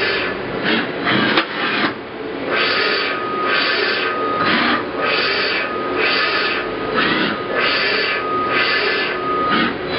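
1987 Pratt & Whitney Tape Drill Mate CNC machining center running an automatic drilling cycle. It makes a quick regular series of hissing strokes, about one every 0.8 seconds, over a servo whine that comes and goes. There is a single sharp click about a second and a half in.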